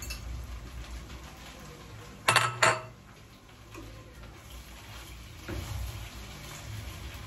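A utensil clattering against cookware in a kitchen, with two loud sharp knocks close together a little over two seconds in and a few softer knocks later.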